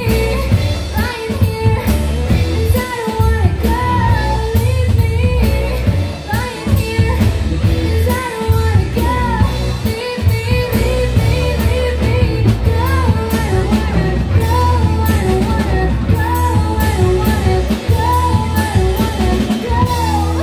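Live rock band playing: a female lead vocal sings over electric guitar, electric bass and a drum kit.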